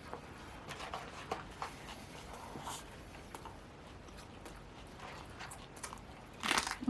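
Close-miked eating sounds: soft chewing and mouth smacks with scattered small clicks as food is handled, and a short louder burst near the end.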